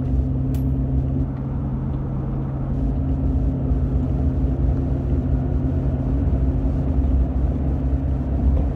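Car engine and road noise heard from inside the cabin while driving: a steady low drone with an even hum. A single short click about half a second in.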